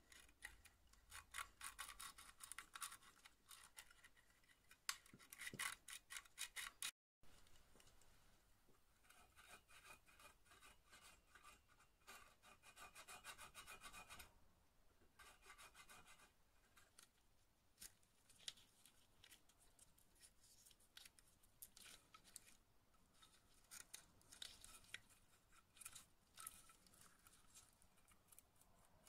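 Metal parts of a VSR-10 airsoft rifle being deburred by hand: quick runs of short scraping, rasping strokes, with a brief break about seven seconds in.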